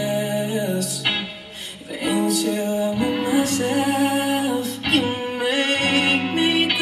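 Brazilian zouk dance music: a song with singing, guitar and sustained bass notes, with sharp percussion hits.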